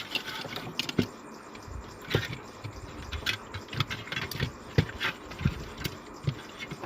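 Irregular clicks and light knocks of a plastic extension-board cabinet and its wiring being handled, several a second with an occasional low thud.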